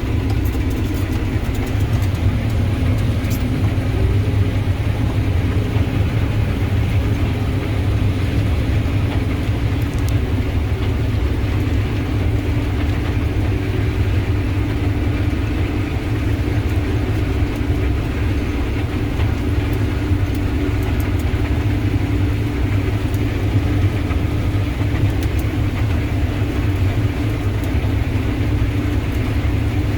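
Combine harvester running steadily while cutting and threshing wheat, its header still engaged: an even, loud, low drone with a constant hum.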